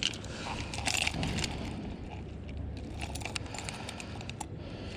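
Lures and small tackle clicking and rattling as they are sorted by hand, scattered light clicks over a steady low background rumble.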